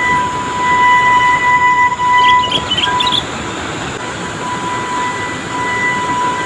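Heavy trucks' engines running as they crawl in low gear over a muddy, rocky road, with a steady high whine throughout and a short cluster of chirps about two to three seconds in.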